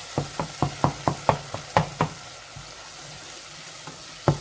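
Wooden spatula scraping and tapping against a metal saucepan while stirring a masala of onion, tomato and ginger-garlic paste frying in oil, over a steady sizzle. The taps come about five a second for the first two seconds, then the sizzle goes on alone until one more knock near the end.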